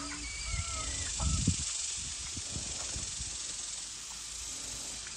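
Steady high-pitched outdoor hiss, like an insect chorus, with a few short high calls in the first second and soft knocks and rustles between about one and three seconds in, the loudest about one and a half seconds in.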